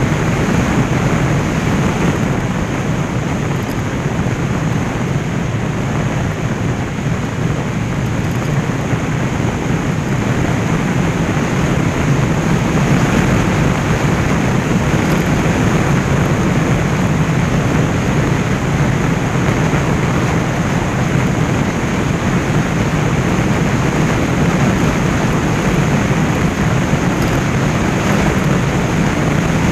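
Motorcycle cruising at road speed: a steady rush of wind over the microphone with the engine's low drone underneath.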